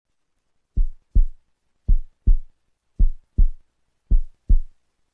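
Heartbeat sound effect: four slow 'lub-dub' double thumps, deep and short, the first coming just under a second in.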